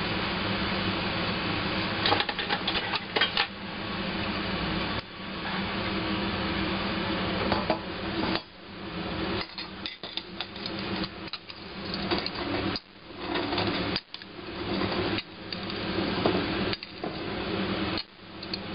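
Cashew nuts tipped from a ceramic plate into a stainless-steel mesh rotisserie drum cage, rattling and clicking against the metal mesh, with the plate knocking on the cage. The clicking starts a couple of seconds in and comes in repeated bursts over a steady low hum.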